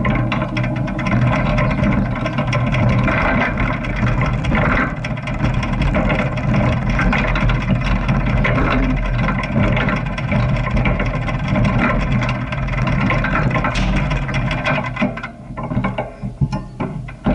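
Motorcycle engine running steadily while riding, its level dipping and wavering for a couple of seconds near the end.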